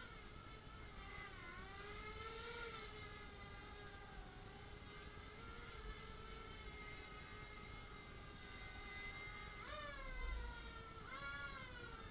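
Hobbyking Color 250 racing quadcopter's electric motors and propellers whining steadily in flight. The pitch dips and rises as the throttle changes, most sharply about ten seconds in and again just after.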